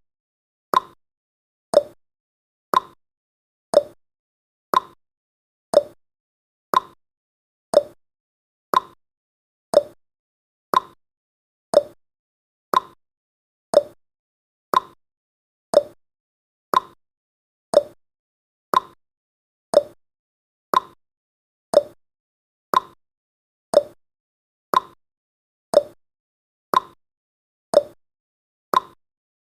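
Clock-style ticking sound effect of a countdown timer: one short, sharp tick about every second, evenly spaced and steady.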